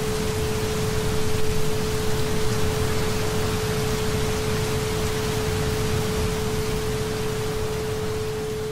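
Steady recorded rainfall with a single steady 432 Hz tone running underneath it.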